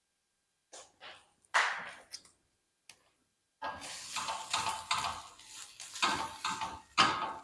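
Spatula scraping and knocking on the bottom of a coated frying pan while stirring tomato paste into onions. First come a few separate scrapes, then from about halfway it becomes continuous stirring, with two sharper knocks near the end.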